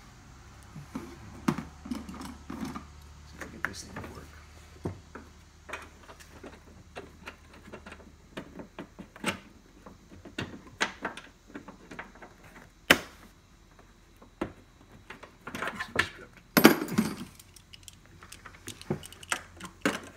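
Irregular clicks, taps and rattles of a Porsche Boxster 986 headlight assembly and its fittings being handled and tightened down into the fender. One sharp click comes about two-thirds of the way through, and a short burst of knocks follows a few seconds later.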